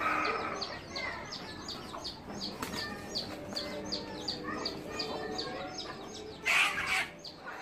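A flock of hens, Light Sussex among them, clucking and murmuring softly as they forage, over a steady run of quick high chirps from a small bird, about three a second. A brief louder burst comes about six and a half seconds in.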